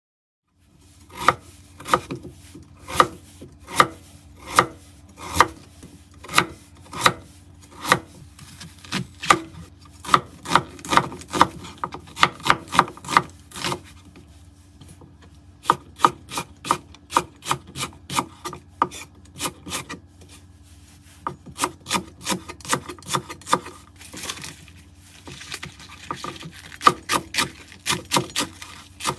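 Kitchen knife slicing through Korean radish and then a large green onion, each cut ending in a sharp knock on a wooden cutting board. The cuts come about one a second at first and faster later, with a few short breaks.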